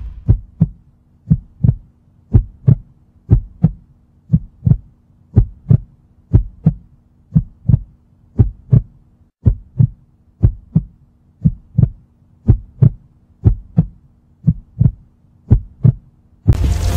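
Heartbeat sound effect: paired lub-dub thumps about once a second, over a low steady hum.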